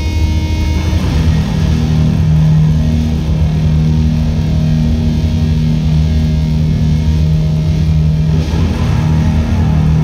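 Live band's amplified electric guitar and bass holding loud, sustained low droning notes. The notes change about a second in and again near the end.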